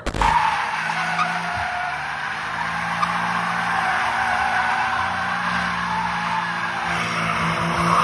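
Toyota GR Corolla's turbocharged three-cylinder engine running steadily under power while the car slides, its tyres squealing.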